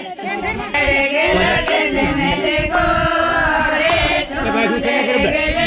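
Group of women singing a mayra folk song together in chorus, holding long, gliding notes; the singing gets louder about a second in.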